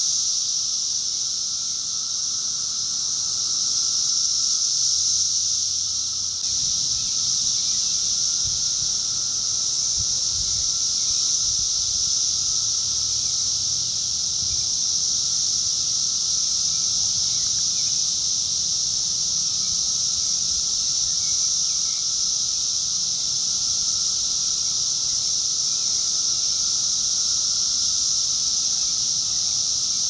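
Dense chorus of cicadas in the treetops: a continuous high-pitched buzzing drone with a fainter, lower steady whine beneath it, holding at an even level throughout.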